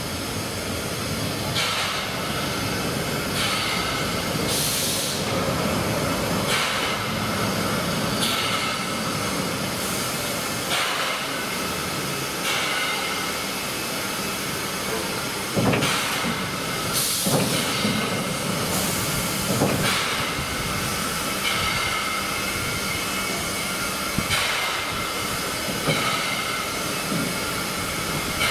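NSWGR 30 class 4-6-0 steam locomotive No. 3016 moving slowly, with a steady high squeal running through it and a short, sharp noise every couple of seconds.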